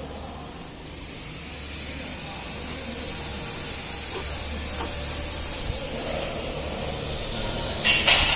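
Steady hissing background noise over a low hum, growing slightly louder, with a short loud rush near the end.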